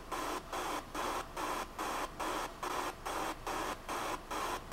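Hiss pulsing on and off evenly, about three times a second, with no clear source.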